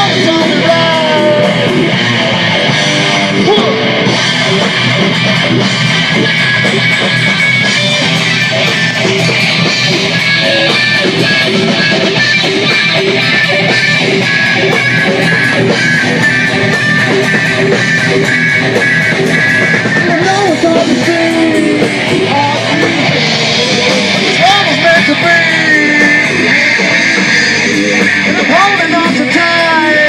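Rock song playing, with guitar and a singing voice.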